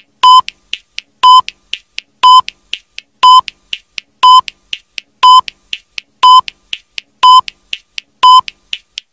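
Countdown timer sound effect: a short, high electronic beep once a second, nine times, with a faint tick between each beep.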